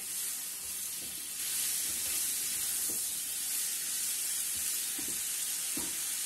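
Chopped tomatoes, onions and spices sizzling in hot oil in a nonstick pan as a slotted spatula stirs them, with a few soft taps and scrapes of the spatula against the pan. The sizzle grows louder about a second and a half in.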